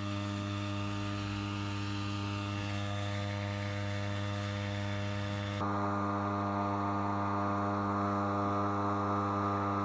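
Small outboard motor running at a steady speed, an even droning hum heard from a kayak being towed behind the boat.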